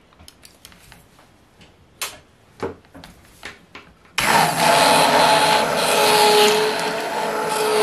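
Immersion stick blender switched on about four seconds in, its motor running steadily with a held whine as it blends a thick oil-and-water body butter emulsion in a bowl. Before it starts there are only a few light taps and clicks.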